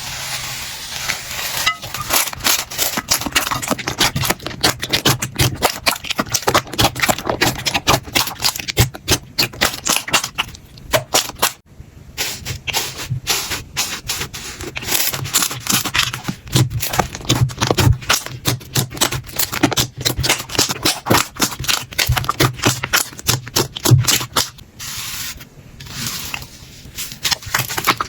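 Slime being squeezed, poked and stretched by hand, giving a fast, dense run of wet crackling and popping clicks, with two brief pauses. A soft hiss opens it.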